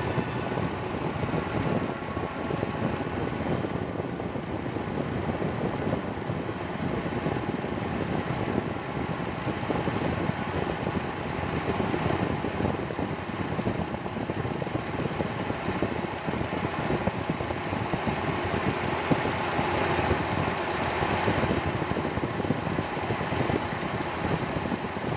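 Mitsubishi Lancer's four-cylinder gasoline engine idling steadily, with the electric auxiliary radiator fan running alongside it.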